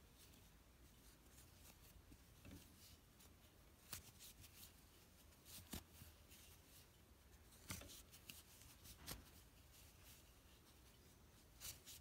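Near silence, with a few faint, soft clicks and rustles scattered through as a crochet hook and yarn are worked in half double crochet stitches.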